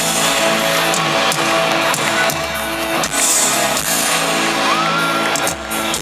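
Loud live pop dance music over a stadium sound system: steady bass and held synth chords of the song's opening, with a few hits.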